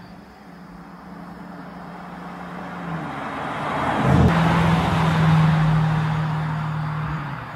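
Bentley Continental GT3-R's twin-turbo V8 through its titanium exhaust as the car drives by at a steady engine speed. The note holds one pitch and grows louder, peaking as the car passes close about four seconds in, then stays strong before dropping off at the end.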